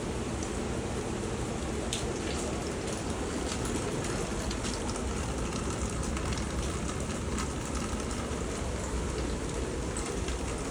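Steady rain falling, an even hiss with a few sharper drop hits.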